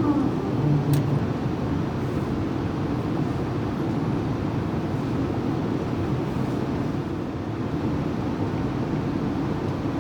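Steady low rumble inside an Airbus A380-800 cockpit while the airliner taxis after landing, with a single sharp click about a second in.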